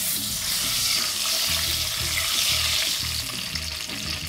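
Chopped onions sizzling in hot oil in a wok, stirred with a wooden spatula. The sizzle is a dense, steady hiss that eases slightly near the end.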